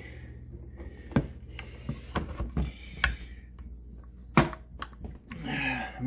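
Plastic dishwasher parts and hoses being handled and fitted back together: a few sharp clicks and knocks with some rubbing, over a steady low hum.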